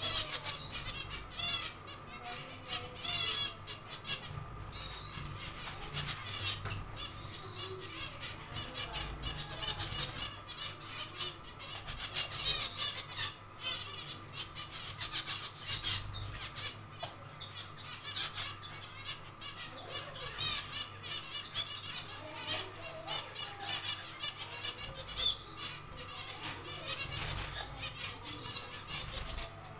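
A colony of zebra finches calling: many short, nasal chirps and beeps overlapping continuously, with wing flutters as the birds move about the cage. A faint steady hum runs underneath.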